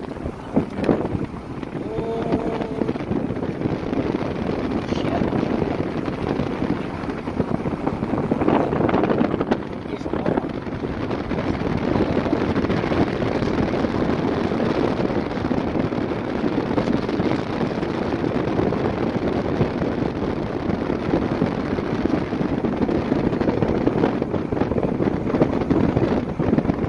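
Wind buffeting the microphone in a steady rush, with a low continuous rumble under it, as when filming from a moving vehicle.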